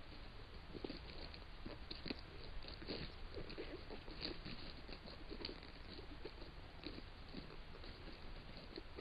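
A male Florida panther clawing at a rotting log to mark its territory: faint, irregular scratching and crackling of bark and wood.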